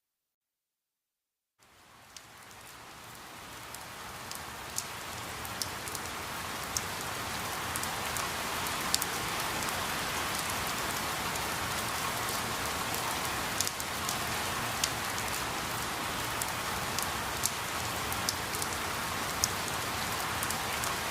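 Recorded steady rain: a hiss that fades in from silence about two seconds in, with scattered sharp drop ticks.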